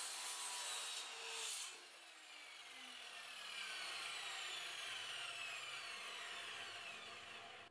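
Electric mitre saw cutting through a strip of Tasmanian oak edging, then its blade winding down with a slowly falling whine over several seconds.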